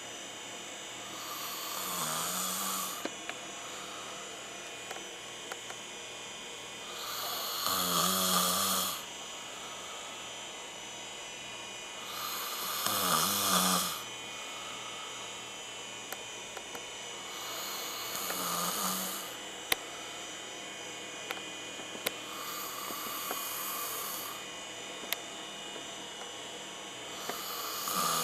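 A person snoring in sleep: a loud snore about every five seconds, six in all, with softer breaths between them.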